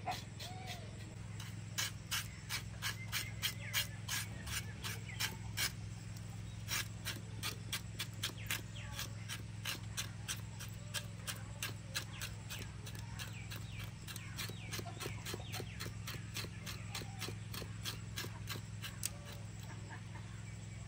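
A knife scraping hair off a scalded cow or goat trotter in quick repeated strokes, about three a second, as the softened hair comes away. A steady low hum runs underneath.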